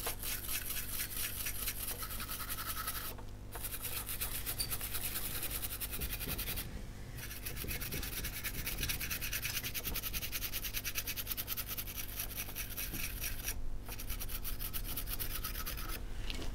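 A brush scrubbing a circuit board wet with isopropyl alcohol to clean off solder flux. It makes a rapid, scratchy back-and-forth scrubbing in four stretches, with brief pauses about 3, 7 and 14 seconds in.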